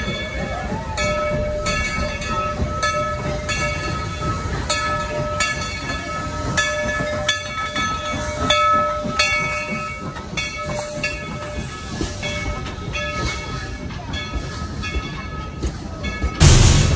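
Steam locomotive bell ringing steadily, about one stroke a second, over the low rumble of the train. A short, loud burst of noise comes near the end.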